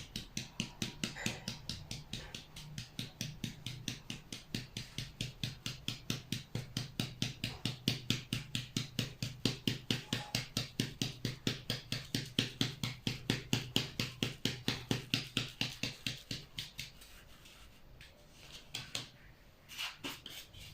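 Madeleine batter being mixed in a bowl: fast, even strokes, about four or five a second, stopping about three seconds before the end, followed by a few light knocks.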